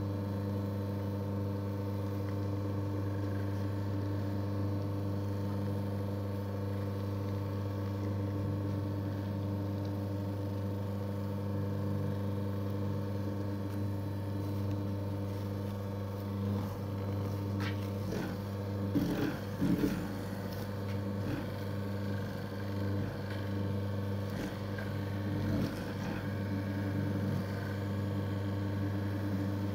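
Electric National mochi maker's motor running with a steady hum as its paddle kneads steamed glutinous rice into mochi dough that still holds some unbroken grains. A few irregular knocks and scrapes come a little past halfway and once more later.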